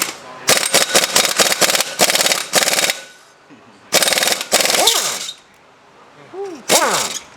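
Impact wrench hammering in several bursts as it backs out bolts on an engine being torn down. Each burst ends in a falling whine as the tool spins down.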